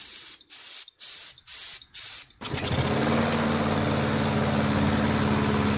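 An aerosol can of starting fluid sprayed in about five short hisses into the air intake of a Briggs & Stratton push-mower engine. About two and a half seconds in, the engine catches and runs steadily on the starting fluid.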